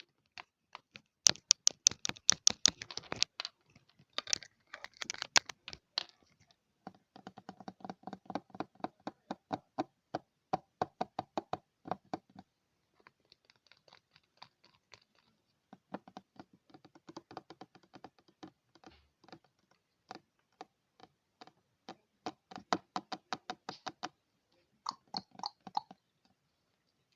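Rapid tapping on a mirror's glass surface, in quick runs of about ten taps a second broken by short pauses, stopping shortly before the end.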